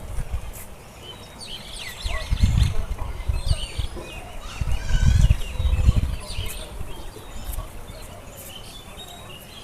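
Small birds chirping and twittering throughout. Repeated low rumbling bursts on the microphone are the loudest sound, around two and five seconds in.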